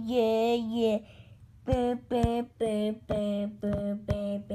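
A child singing a tune to himself: one long note, then a string of short syllables at about two a second on a nearly level pitch.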